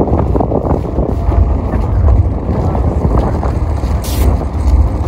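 Wind buffeting the microphone in an open field: a loud, steady, deep rumble.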